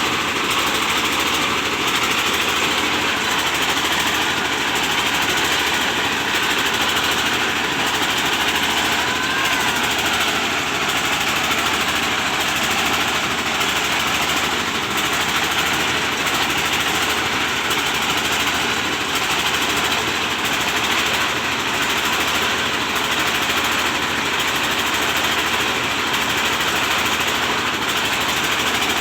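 Rice milling machine running steadily and loudly, driven by an old Dongfeng 24 hp single-cylinder diesel engine.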